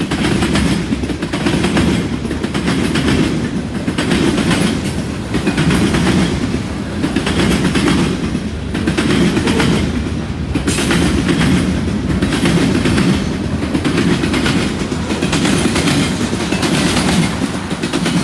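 Freight train cars (tank cars and boxcars) rolling past at close range. The wheels make a regular clickety-clack over the track about once a second under a steady rumble.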